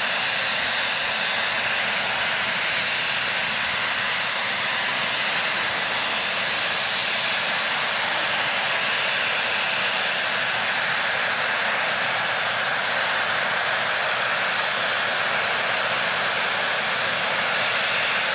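Steam locomotive blowing off steam: a steady, loud hiss that holds unbroken throughout.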